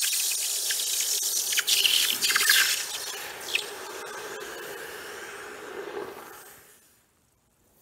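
A hot, freshly cast aluminium ingot being quenched in a bucket of water. It hisses loudly with crackling, then the sizzle fades and stops about seven seconds in as the metal cools.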